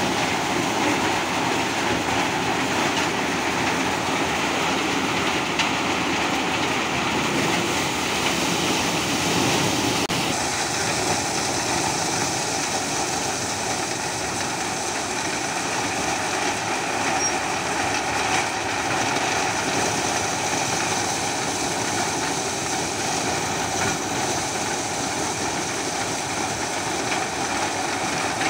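A tractor-driven maize dehusking and shelling machine runs steadily. Its drum and fans and the tractor driving it make a continuous mechanical noise. The high hiss changes slightly about ten seconds in.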